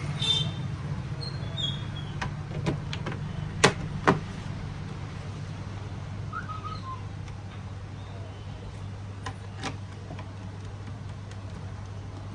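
Sharp clicks and taps of a Lenovo IdeaPad laptop's plastic bottom cover being pressed back into place and its screws refitted after an SSD install. The loudest pair of clicks comes about three and a half to four seconds in, and a few lighter ones come near the end. A steady low hum runs underneath.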